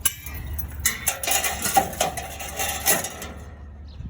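Small wire baskets and light scrap metal clattering and clanking together, with several ringing metal-on-metal knocks for about two seconds starting about a second in.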